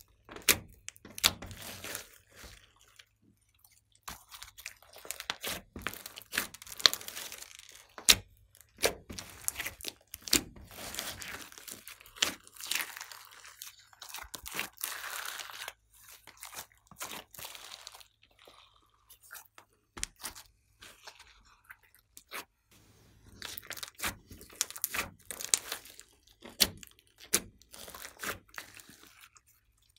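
Glossy slime mixed with clay, floam and glitter being kneaded, folded and squeezed by hand: wet squishing and crackling, with irregular sharp pops and clicks.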